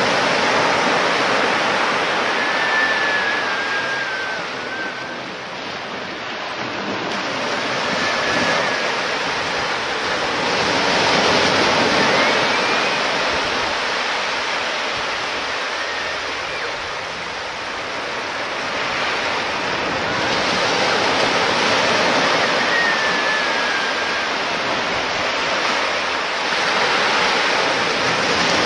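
Surf breaking on a beach, the rush of the waves swelling and fading every several seconds.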